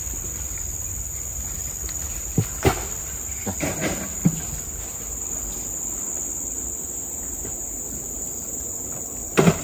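Insects in tropical forest chirring in one continuous high drone, with a few faint knocks and short sounds around three to four seconds in and just before the end.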